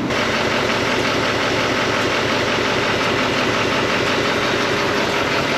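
2020 GMC 2500HD's 6.6-litre Duramax V8 turbo-diesel idling steadily, heard close up from beneath the truck, running normally just after a fuel filter change and priming.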